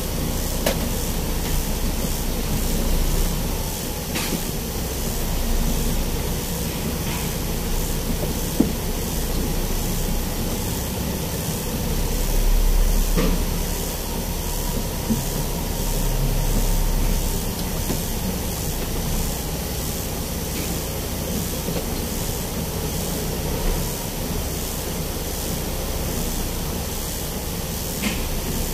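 Inside a moving truck cab: the engine's steady low rumble, which grows louder for a few seconds midway, under a constant hiss, with a few light knocks from the cab.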